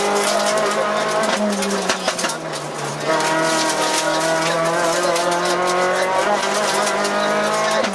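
Renault Clio Williams rally car's 2.0-litre four-cylinder engine, heard from inside the cabin at stage pace. The revs drop as it lifts off about a second and a half in, then it pulls hard again from about three seconds in, the pitch climbing steadily. A brief break near the end marks a gear change.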